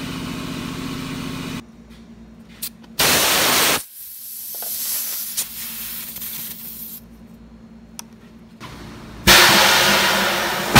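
Tire shop compressed-air equipment. A steady machine hum stops early on. Then two blasts of air hiss: a short one about three seconds in, and a longer one near the end that slowly fades.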